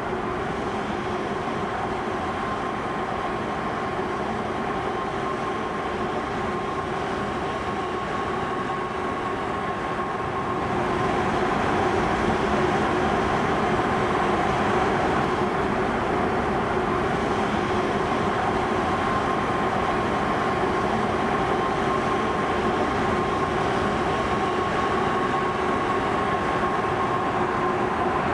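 A steady rushing rumble with several sustained droning tones held over it, stepping up in loudness about eleven seconds in.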